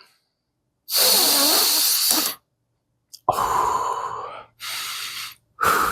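A person taking deep breaths through the nose, with a magnetic nasal strip holding the nostrils open: one long, loud breath about a second in, then three shorter breaths near the end.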